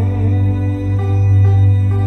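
Loud music over a carnival sound-system rig: a heavy, steady bass under a plucked-string melody.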